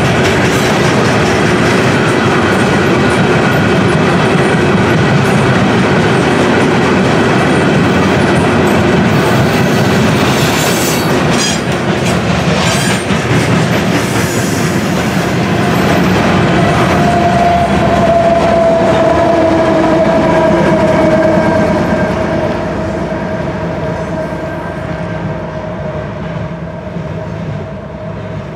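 Freight train of loaded steel-coil cars rolling past: steady rumble and clatter of wheels on the rails, with a drawn-out wheel squeal coming in about halfway. The sound fades over the last few seconds as the end of the train goes by.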